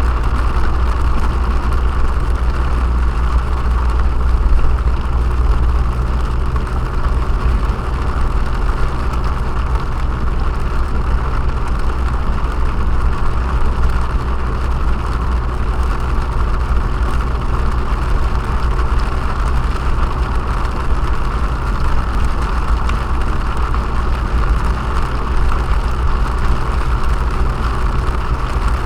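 Steady driving noise inside a car: a low engine and tyre rumble with an even hiss over it.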